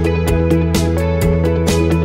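Upbeat instrumental background music with a steady beat and sustained chords.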